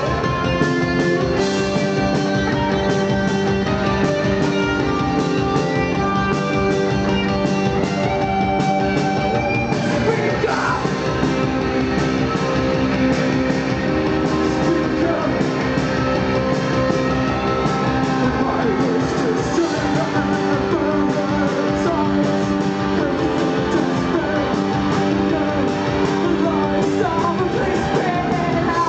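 Live post-punk band playing: guitars and steady drums with held synth-like tones, and a voice singing through the middle and later part, recorded from the crowd at a club show.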